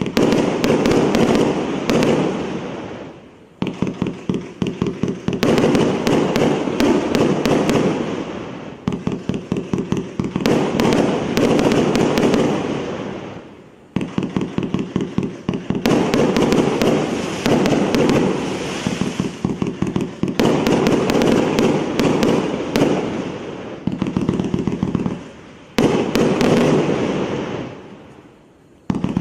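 A 348-shot, 1.25-inch-calibre "President" fireworks battery firing: rapid volleys of launches and bursts, each volley lasting a few seconds, with brief lulls between them.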